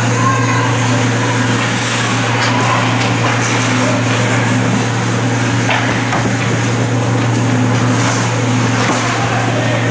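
Ice hockey play: sticks and puck clacking a few times, with skates scraping, over a steady low hum in the rink.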